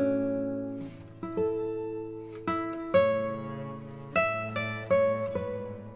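Background music: an acoustic guitar picking notes and chords, each plucked note ringing out and fading before the next.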